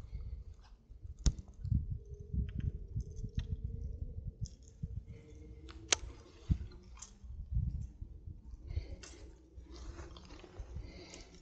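Close handling noise as a baitcasting reel is wound and worked by hand: low rustling and rubbing with scattered sharp clicks, two standing out about a second in and again near the middle.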